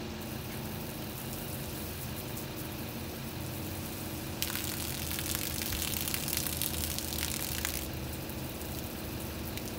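Water spraying from a hose held out of a bus window, a steady rushing hiss that grows much louder for about three seconds from near the middle, over a steady low hum.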